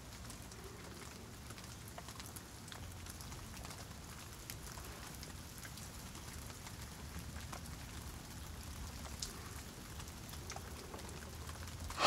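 Faint, steady hiss of noise like light rain, with a few soft scattered ticks.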